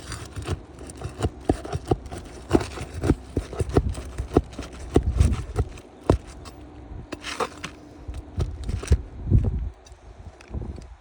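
Irregular knocks, clicks and scraping as asphalt roof shingles are handled and lifted for inspection, over a low rumble.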